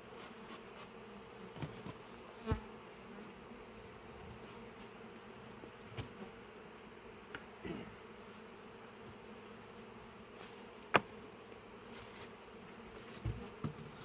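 Honeybees buzzing around an occupied hive: a steady hum, with a few scattered clicks and knocks from handling, the sharpest one late on.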